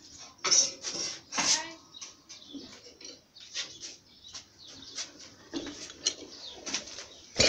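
Carving tools and a wooden toolbox being rummaged through, picked up and carried while a small gouge is fetched: scattered knocks and clinks, with a sharper knock near the end.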